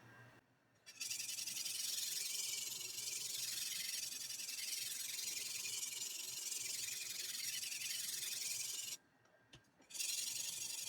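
Steel knife edge being ground against an abrasive, a steady high-pitched hiss that stops for about a second near the end and then starts again.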